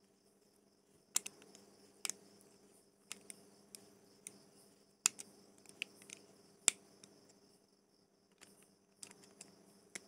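Small sharp clicks and taps, irregularly spaced, of metal fishing-reel parts being handled and tightened during reassembly.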